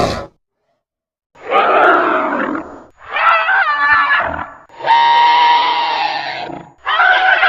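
Monster sound effects for the Grootslang, a legendary giant serpent: a call ending just after the start, then a run of four separate drawn-out creature calls, each about one and a half to two seconds long, with dead silence between them.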